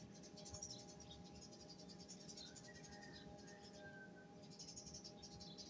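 Faint sizzling of broccoli and carrots frying in oil in a wok as they are stirred, with a faint steady hum underneath.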